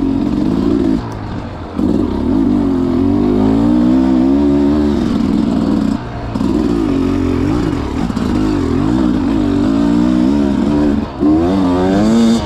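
Enduro dirt bike engine under load on a trail, its pitch rising and falling with the throttle. The rider briefly backs off about a second in, near six seconds and near eleven seconds.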